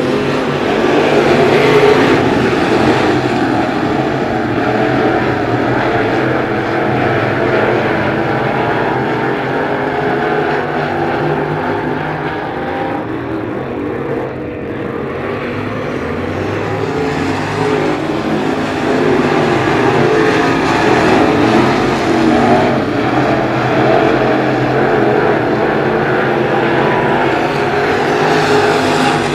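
A field of Crate Late Model dirt-track race cars running at speed, their V8 engines blending into one continuous din that eases a little about halfway through and builds again.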